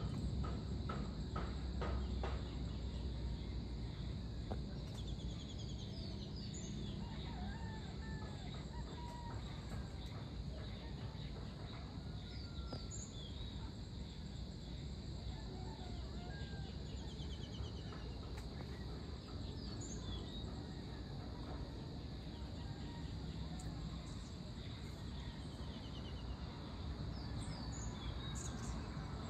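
The rumble of thunder from an approaching storm dies away in the first couple of seconds. Then scattered short bird calls and chirps sound over a low, steady outdoor rumble.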